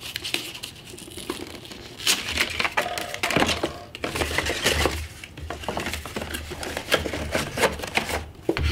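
Packaging being handled: a paper wrapper rustling and crinkling as it is slid off a drone remote controller and tucked into its box, with many sharp clicks and knocks of the plastic controller and its parts against the cardboard and pulp-fibre insert.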